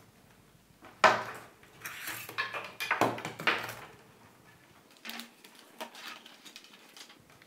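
Handling noise as a wired computer mouse, headset and their cables are picked up and set down on a tabletop. Several knocks and clatters come in the first half, then faint small clicks.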